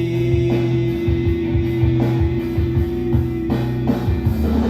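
Rock backing music with electric guitar, bass and drums, between sung lines of the song. A single long note is held for the first three and a half seconds, then drops away.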